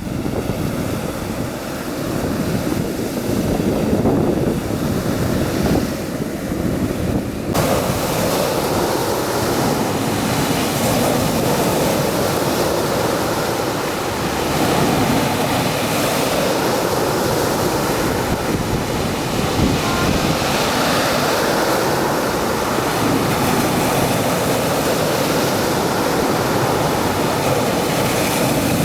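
Sea surf washing onto the beach in a steady rush, with wind buffeting the microphone. About seven seconds in the sound changes abruptly and the surf becomes brighter and hissier.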